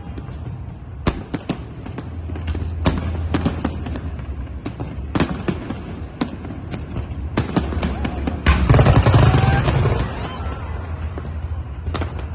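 Fireworks going off: a string of sharp bangs and crackles at irregular intervals, with a louder, longer burst about eight and a half seconds in.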